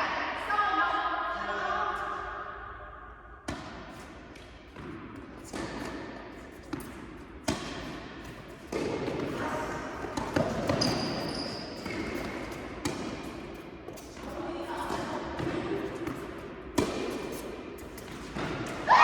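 Tennis rally on an indoor court: a tennis ball struck by rackets and bouncing on the court, sharp knocks at irregular intervals about a second apart.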